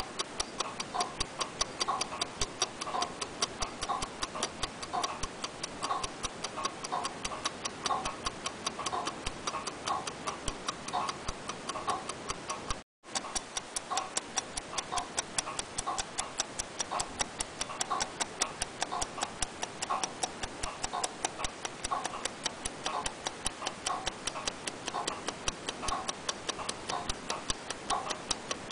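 Clockwork ticking: rapid, even mechanical ticks that break off for an instant about halfway through.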